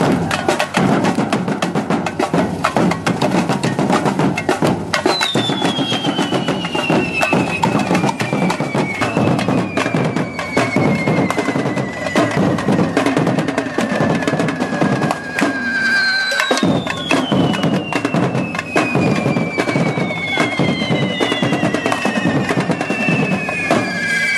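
A correfoc drum group playing a fast, loud rhythm on big drums. Over it come several long firework whistles, each sliding slowly down in pitch; the first starts about five seconds in and more follow later.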